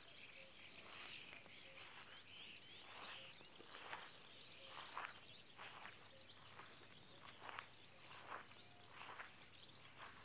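Quiet, evenly paced footsteps through grass, a soft swish about every three-quarters of a second, with faint birdsong chirping in the first few seconds.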